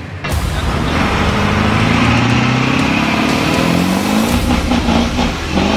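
A vehicle engine revving, its pitch climbing steadily over a few seconds and rising again near the end.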